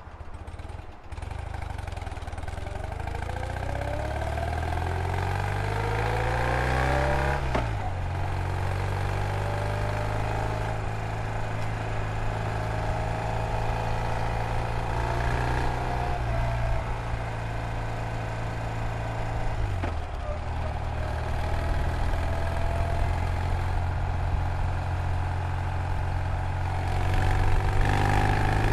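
A 1970 BMW R75's air-cooled flat-twin engine pulls away from a standstill, its note rising steadily through first gear. The pitch drops sharply at an upshift about seven seconds in. The engine then runs on at road speed, with further dips in pitch at later gear changes.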